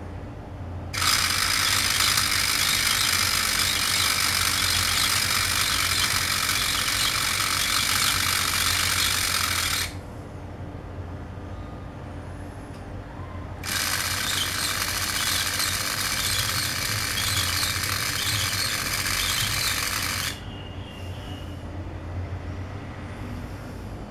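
Meccano model crane's electric motor and gear drive running twice, about nine seconds and then about seven seconds, with a loud, even whirring and grinding of the gears as it winds the crane's cords. A low steady hum carries on between the two runs.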